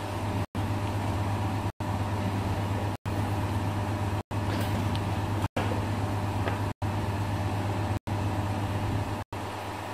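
Steady low hum with hiss, broken by brief silent gaps at an even pace, a little under one a second.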